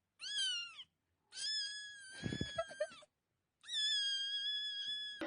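A cat meowing three times in high-pitched cries: a short one, then a long drawn-out one, then a third nearly as long.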